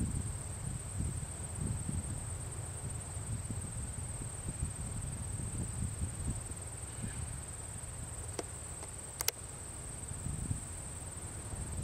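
Insects trilling in one steady high-pitched note, over a low rumble of wind on the microphone. Two sharp clicks come about eight and a half and nine seconds in.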